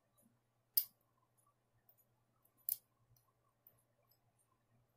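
Dimple-lock pick working inside a Mul-T-Lock Jr. cylinder: two sharp clicks from the pick and pins, about a second in and again near three seconds in, the second a quick double, with faint ticking between.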